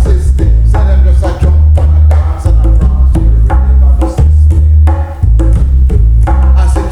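Reggae song with a heavy bass line and drums with sharp, wood-block-like percussion hits.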